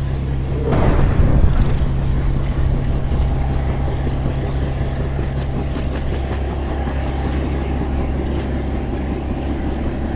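An explosion blast about a second in, over a steady, loud, low rumble of engine-like droning that runs on unchanged.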